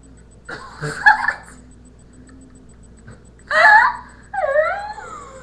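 A person's wordless vocal noises: two outbursts of moaning, whining cries, the second longer, with its pitch sliding up and down.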